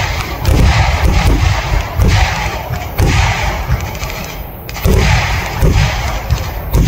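Kerala temple-festival fireworks (vedikettu) going off: a rapid series of heavy booming bangs, about one every half second to a second, over a continuous rumble and crackle.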